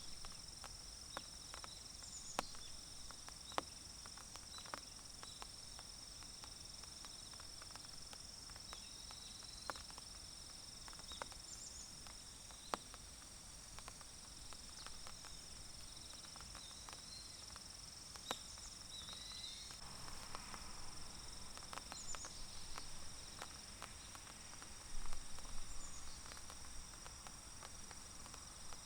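Insects trilling steadily at a high pitch, with scattered sharp ticks of light raindrops on leaves and a few short bird chirps. A louder rustling patch comes about twenty seconds in and peaks near the end.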